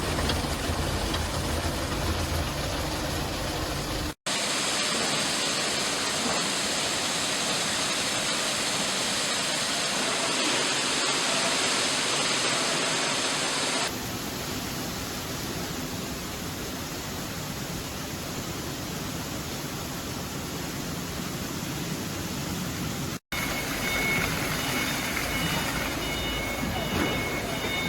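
Automatic tunnel car wash running: water spray and spinning brushes make a steady rushing noise that changes abruptly several times. A hissier spray stretch runs from about 4 to 14 seconds in, and a faint high whine joins near the end.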